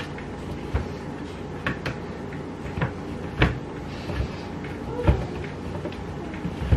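Cheese being grated by hand on a metal box grater standing on a wooden cutting board: scraping strokes with irregular knocks of the grater against the board, about one a second.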